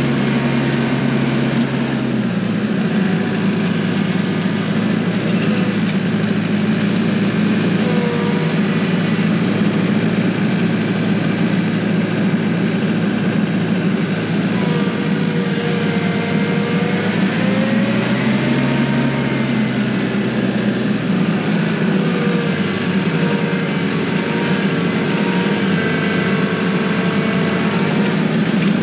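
TYM T474 compact tractor's diesel engine running steadily under load while the front loader works crush run gravel. The engine note shifts about two seconds in and again later, and a whine rises and falls in pitch as the loader moves, mostly in the middle and near the end.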